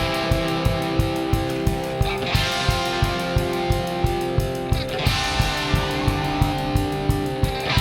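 Background music: guitar chords over a steady beat of about three beats a second, the chords changing twice.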